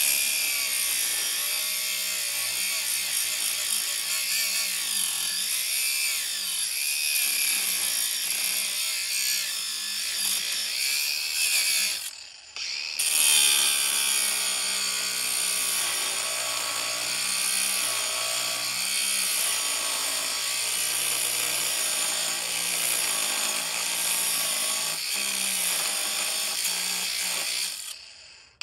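Handheld power tool running, its motor pitch wavering up and down as it works. It stops briefly about twelve seconds in, starts again, and stops again just before the end.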